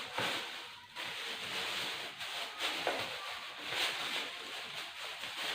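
Packaging of a wrapped parcel rustling and crinkling irregularly as it is handled.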